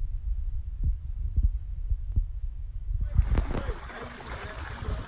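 Muffled low rumbling and thumping on the microphone, then from about three seconds in a steady rushing noise that rises across the range.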